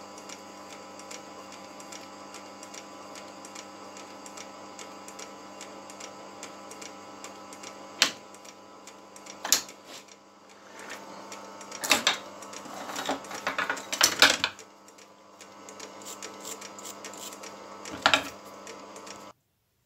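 Metal lathe running with a steady hum and a regular light ticking from its drive, during M3 thread tapping. Several sharp metallic clunks come from about eight seconds on, as the tap holder is worked and drawn back from the part.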